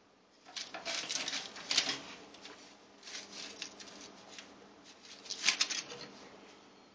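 Aluminium foil crinkling and rustling, with small clicks and rattles from the toaster oven's tray, as a cat noses and paws at chicken fingers on it. It comes in three bursts of crackling, the loudest near the start and another about two-thirds through.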